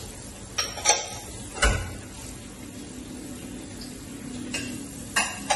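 Metal utensils clinking and knocking against a pot of dal while it is stirred: several sharp clinks, the loudest about a second in.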